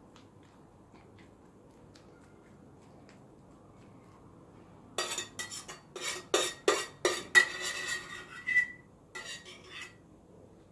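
Quiet room tone, then from about halfway through a quick run of sharp clinks and knocks of kitchen dishes and utensils being handled, one leaving a short ringing note.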